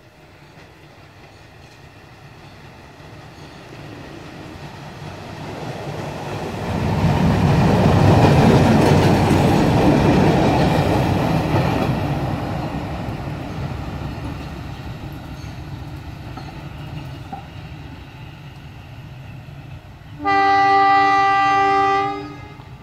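Diesel rail inspection trolley (lori dresin) running past on the track, its rumble building to its loudest about eight seconds in and then fading as it moves away. Near the end comes one train horn blast of about two seconds.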